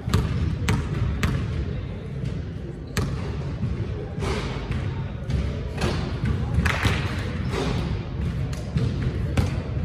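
Basketball bouncing on a gym court during play: a few sharp, irregular thuds over a steady low rumble of gym noise, with several short noisy bursts in the middle.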